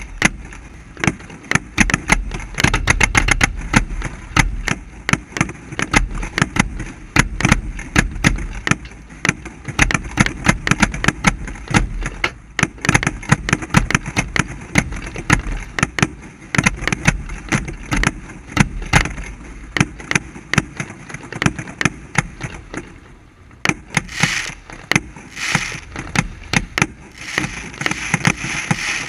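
Barge-fired fireworks going off at close range: a rapid, irregular string of sharp bangs and pops from candles, mines and small aerial shells, over a low rumble. Near the end, a few seconds of hissing join the bangs.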